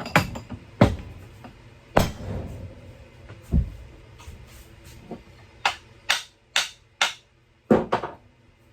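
Axe head being beaten down onto its wooden handle to burn in the fit: a string of about a dozen sharp knocks, spaced out at first and coming about twice a second near the end.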